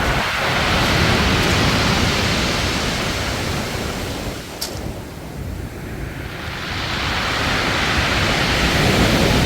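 Sea waves washing onto a beach, with a low rumble underneath. The wash fades about halfway through and builds again near the end.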